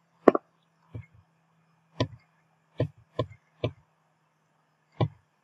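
About seven sharp clicks at irregular spacing from a computer mouse, over a faint steady hum.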